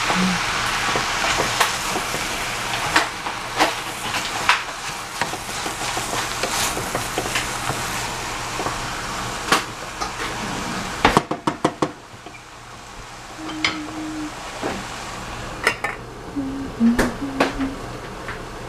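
Vegetables sizzling in a stainless steel saucepan while a wooden spatula stirs them, with frequent clicks and scrapes against the pan. About eleven seconds in comes a quick run of knocks, after which the sizzle drops and turns muffled under the pan's lid, with only an occasional click.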